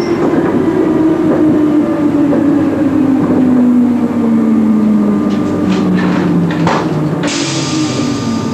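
MI79 electric multiple unit in a station with its traction motor whine falling steadily in pitch as the train slows alongside the platform, with a few wheel clicks over the rail joints. About seven seconds in, a sharp hiss of compressed air starts.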